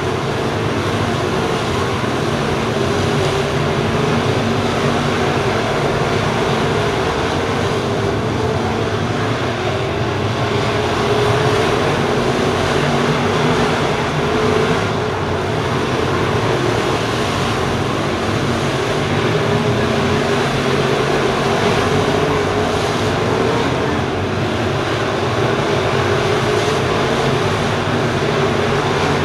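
A field of crate late model dirt race cars lapping the track together, their V8 engines at racing speed blending into loud, continuous engine noise that swells a little as the pack passes.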